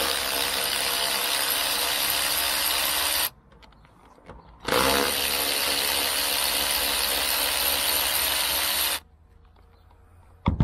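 Cordless Ryobi electric ratchet running in two steady runs of about three and four seconds, with a short pause between, as it backs out 10 mm bolts from the roof-rack mount holes in the roof channel. A sharp click comes at the very end.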